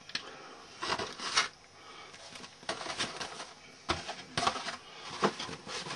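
Model car kit box and plastic parts being handled: irregular light clicks, taps and rustles of cardboard and plastic.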